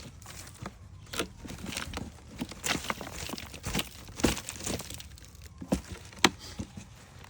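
Potatoes being dug out of soil by hand: irregular crunches, scrapes and rustles of earth, roots and potato plant stems being moved and pulled.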